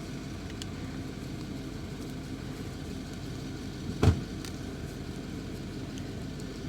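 A vehicle engine idling steadily as a low, even hum, with one short knock about four seconds in.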